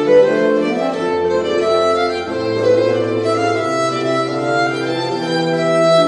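Background music of bowed strings playing slow, held notes in several parts.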